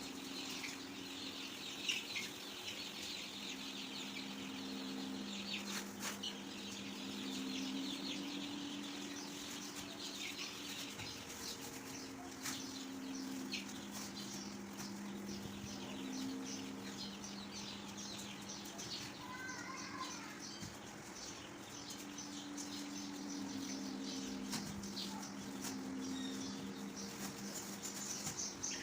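A flock of young chicks peeping nonstop, many short high cheeps overlapping, over a steady low hum.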